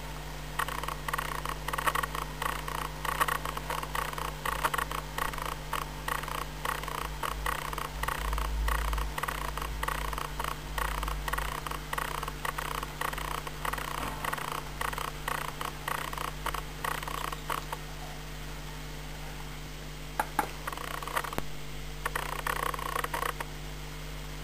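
Model railway train, a diesel locomotive hauling a rake of wagons, running past close by: a dense rattle of wheel clicks over the rail joints that stops about three quarters of the way through, with a few more clicks near the end.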